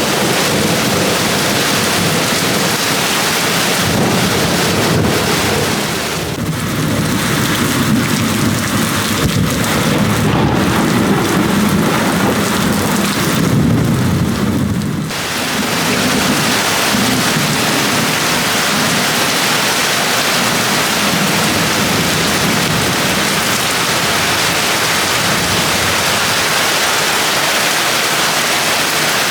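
Heavy rain pouring down steadily, with a long, low rumble of thunder through the first half that dies away about halfway, leaving the rain alone.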